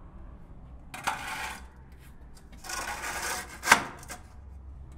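A large metal builder's square scraping twice against rough plaster as it is turned around and fitted into a wall corner, then a sharp knock about three and a half seconds in as it meets the wall.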